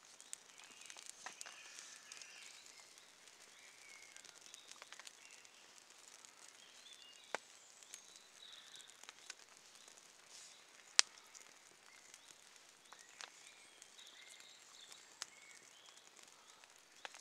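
Quiet woodland with faint birdsong, and scattered small clicks and snaps as thin split sticks are laid on a young wood fire. One sharp snap comes about eleven seconds in.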